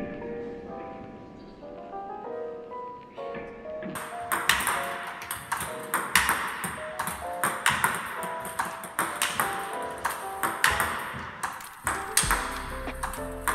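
Background music with a light, marimba-like melody. From about four seconds in, sharp table tennis ball clicks join it at roughly two a second, as the paddle strikes the ball and the ball bounces on the table during fast multiball backhand push practice.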